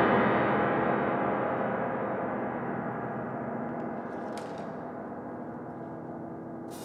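One loud struck chord from a piano, violin and percussion trio rings on and dies away slowly, many pitches sounding together. Two faint clicks come near the end.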